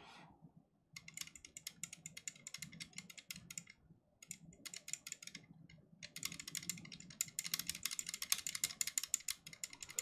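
Loose drop-in USB port piece in a Helix Lab Aaru aluminum keyboard case being wiggled, rattling in fast, faint clicks in three spells with short pauses between them. The clicking is the piece's play in its slot, only a tiny movement.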